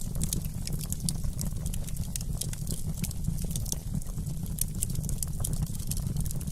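Wood fire in a fireplace crackling: many quick, sharp pops and snaps at irregular intervals over a steady low rumble of the flames.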